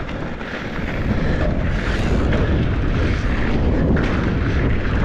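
Mountain bike descending a dirt trail at speed, heard through a mounted action camera's microphone: a steady, heavy wind rumble with the rush of tyres and trail noise beneath.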